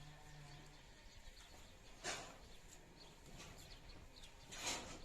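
Quiet rural outdoor ambience with faint bird calls, broken by two short rustles about two seconds and four and a half seconds in.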